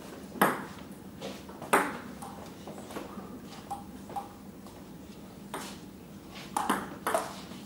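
Table tennis ball clicking off bats and table: two sharp knocks in the first two seconds, a few faint ticks, then a quick run of hits in the last two seconds as a rally gets going.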